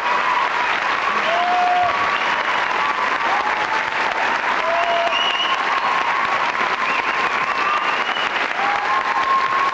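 Studio audience applauding steadily, with scattered short whistles over the clapping.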